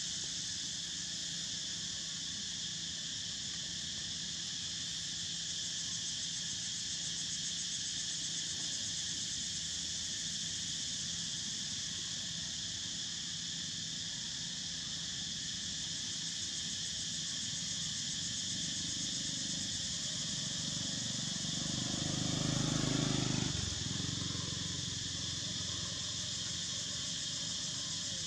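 Steady, high-pitched insect chorus. About three-quarters of the way through, a louder low sound with a steady pitch swells for a few seconds and then cuts off suddenly.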